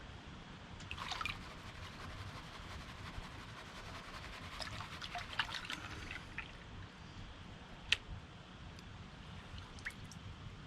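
Water sloshing and trickling in a gold pan while concentrates are panned down, with small splashes about a second in and again midway, and a few sharp clicks later.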